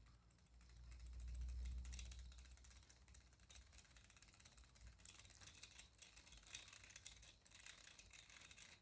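Pulse motor switched by a reed relay, running with a fast, irregular metallic clicking as its coil is pulsed. A faint low hum near the start; the clicks come thicker from a few seconds in.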